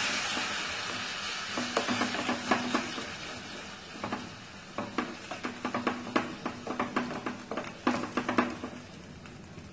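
A ladle stirring melting jaggery in an aluminium saucepan: many quick clicks and scrapes of the ladle against the pan over a simmering hiss that slowly fades.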